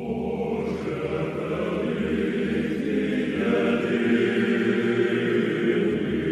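Choir chanting slowly in sustained harmony over a low held bass note, as background music.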